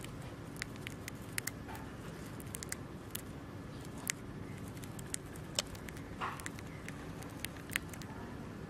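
Dwarf hamster nibbling a piece of food held in its paws: small, sharp crunching clicks at irregular intervals over a low steady background hiss.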